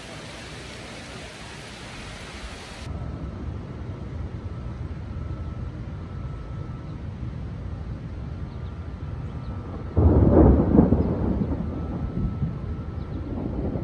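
Steady rain falling for the first few seconds, then a low rumble of a thunderstorm, and about ten seconds in a loud clap of thunder that rolls on and slowly fades.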